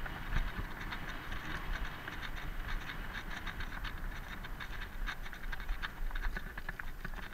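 Mountain bike rolling fast along an asphalt path: tyre rumble and wind on the microphone, with frequent irregular rattling clicks from the bike and camera mount.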